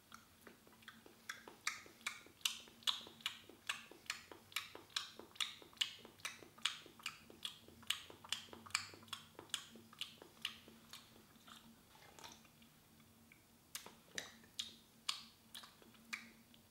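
Close mouth sounds of someone eating or drinking: a quick, even run of wet clicks, about two or three a second, that stops about twelve seconds in and picks up again briefly near the end.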